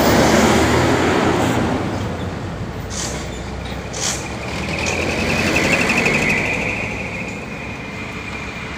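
Two heavy trucks driving past close by, one after the other: a Hino dump truck right at the start, and a second truck passing about five seconds in. Two short hisses come in between, and a high steady whine sounds during the second pass.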